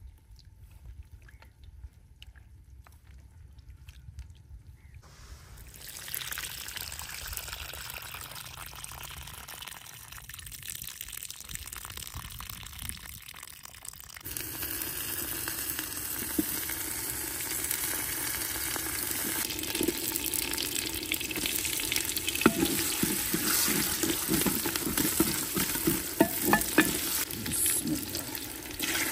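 Food sizzling and bubbling in a clay cooking pot over a wood stove, with a ladle stirring and knocking against the pot. The hiss grows louder about halfway through, and the clicks of stirring come thick near the end.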